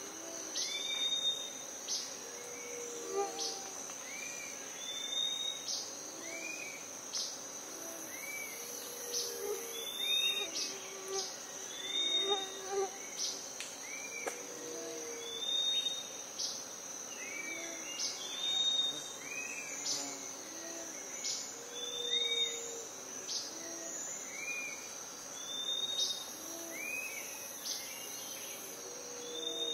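Rainforest ambience: a steady high-pitched insect drone with regular pulses, over which birds repeat short arched calls every second or two, with lower calls underneath.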